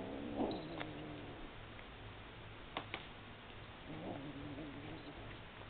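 Kitten yowling twice while gripping a feather toy in its mouth, each a drawn-out, wavering cry of about a second and a half: the growly, possessive sound a kitten makes over prey. Two sharp clicks come about three seconds in.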